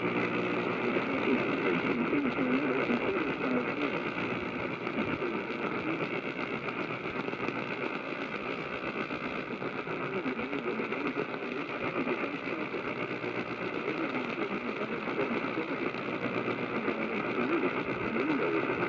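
Weak radio reception: a steady hiss and buzz of interference with a muffled, unintelligible voice beneath it.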